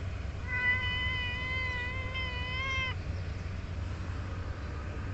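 A domestic cat meowing: one long meow of about two and a half seconds, starting about half a second in, held at a steady pitch and rising slightly just before it stops.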